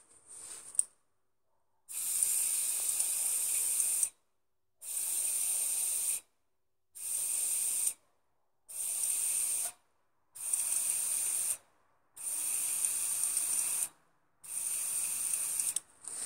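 Repeated bursts of hissing air, seven in a row, each about one to two seconds long with short gaps between. It is a tightness test of the crankshaft oil seal on a Franco Morini FM4 moped engine's crankcase, checking for a leak that had let the fuel-oil mix pass into the gearbox casing.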